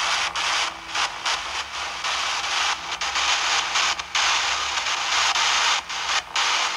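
Hissing static from a phone's EVP (ghost-box) app, cutting out briefly many times, in which the ghost hunters ask whether a moan or howl can be heard.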